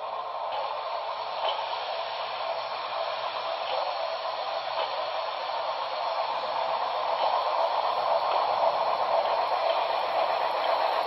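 HO scale Pennsylvania Railroad I1sa 2-10-0 steam locomotive model's sound decoder playing a steady steam hiss at standstill, with faint ticks, growing slowly louder toward the end.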